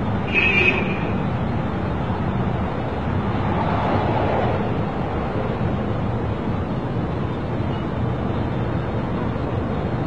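A steady low rumble with a hiss, like a vehicle running. A short, higher sound comes about half a second in.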